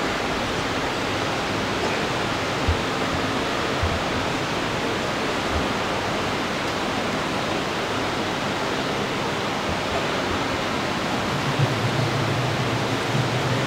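Steady rushing room noise with no speech, with a few soft low thumps about three, four and five and a half seconds in. A low rumble comes in near the end.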